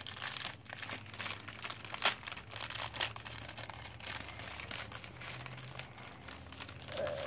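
Clear plastic packaging of a foam sponge brush crinkling and crackling as it is handled and pulled open, with irregular crackles and a couple of sharper ones about two and three seconds in.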